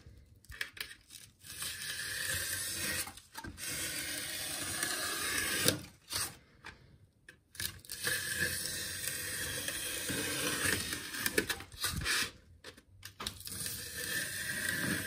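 A Tajima 25 mm snap-off utility knife blade slicing through a sheet of expanded polystyrene foam. It makes several long scraping strokes, each about two to four seconds, with short pauses between them.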